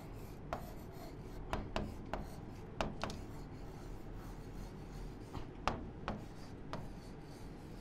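Pen writing on an interactive whiteboard's screen: faint rubbing of the pen tip across the glass, with light, irregular taps as strokes begin.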